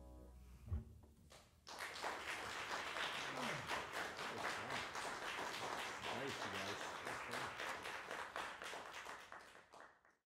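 Audience applauding at the end of a jazz piece: the last notes die away, a single low thump sounds under a second in, and applause breaks out about two seconds in, then fades out near the end.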